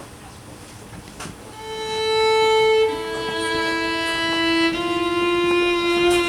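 Violin playing long, held bowed notes. The first note comes in about a second and a half in, and about halfway through it steps down to a lower note that wavers slightly as it is sustained.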